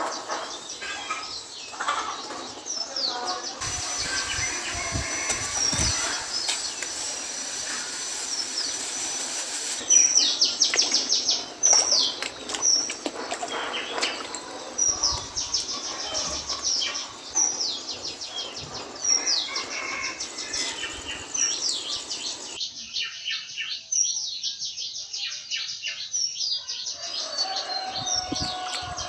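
Birds chirping, with repeated high calls that sweep downward in quick trills, and a few knocks about four to six seconds in.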